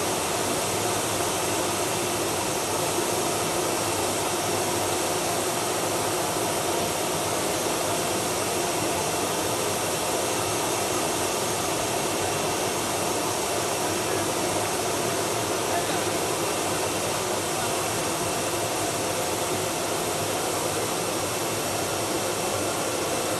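Jet engines of a Boeing 737 airliner running at idle: a steady rushing whine that holds level without change.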